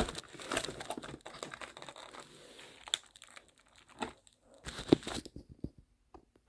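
Cardboard fruit-snack box being opened and handled: crinkling and tearing with small knocks, dense for the first three seconds or so, then only a few scattered rustles.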